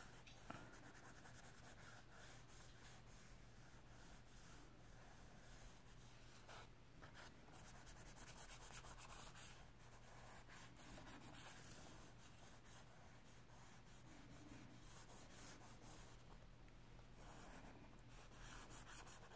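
Faint scratching and rubbing of a soft willow charcoal stick on sketchbook paper in many short, repeated shading strokes. A low steady hum lies underneath.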